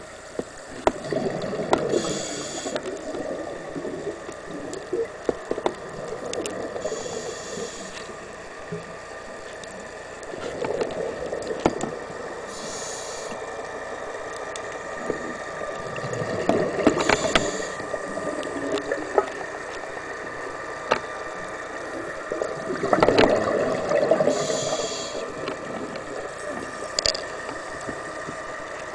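Scuba diver breathing through a regulator underwater: about five breaths, each a short hiss on the inhale followed by a gurgling rush of exhaled bubbles. A faint steady tone and occasional small clicks lie under it.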